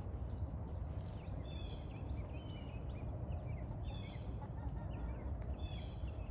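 Steady low outdoor rumble with a small bird singing a short, high, falling trilled phrase three times, about two seconds apart.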